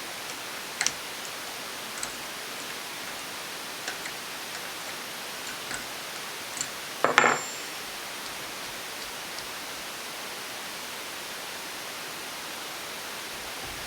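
Light metal clicks and taps of hand tools working on a two-stroke motorcycle engine's carburetor mounting nuts, over a steady hiss, with one louder metallic clatter and short ring about seven seconds in.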